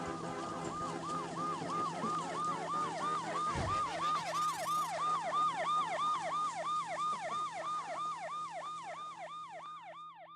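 Fast yelping siren sound, a falling wail repeated about three times a second, fading out near the end. A low thump and a steep rising whoosh come about three and a half seconds in.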